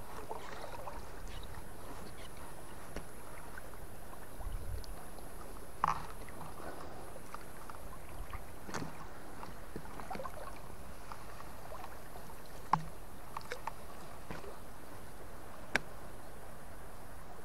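Steady rush of river water flowing, with a few sharp clicks about six, thirteen and sixteen seconds in.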